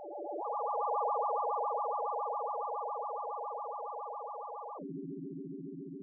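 Sci-fi scanning sound effect: a synthesized electronic tone with a fast, even warble. It steps up in pitch about half a second in, holds, then drops to a lower pitch near the end, slowly fading.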